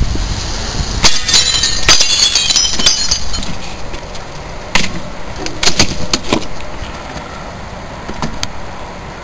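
Window glass smashing about a second in, with shards tinkling and clinking down for a couple of seconds. Then several hard knocks as a sheet of plywood falls out of the window opening and lands on the ground.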